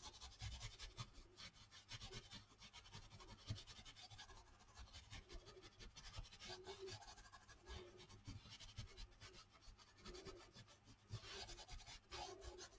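Faint dabbing and rubbing of a paint-loaded sponge pressed through a bubble stencil onto paper, a quick run of soft strokes.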